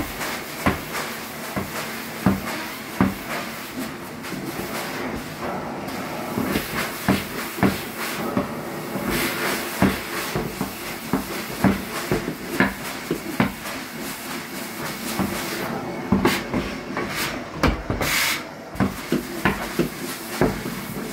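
Carpet extraction cleaning wand drawn over carpet: a steady suction hiss with frequent sharp knocks and clicks as the metal wand head is pushed and pulled along the skirting board.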